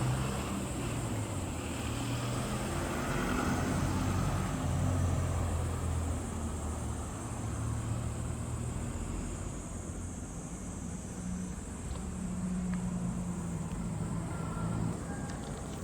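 Toyota Altezza RS200's 3S-GE 2.0-litre inline-four engine running, its low note shifting up and down.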